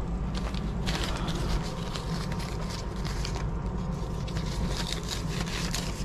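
Light scattered clicks and rustles of camping gear being handled and packed, over a steady low rumble.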